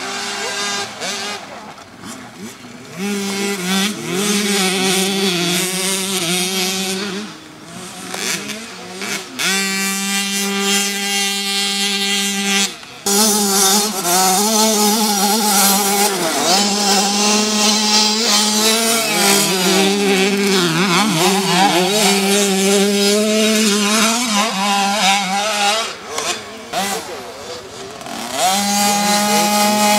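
Small junior motocross bike engines revving hard as they ride the track, the pitch climbing and dropping again and again with throttle and gear changes. There is a sudden break about 13 seconds in.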